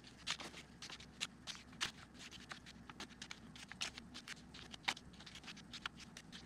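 US $1 and $5 paper bills being handled and flipped through one by one: a run of soft, irregular crisp ticks and rustles of paper.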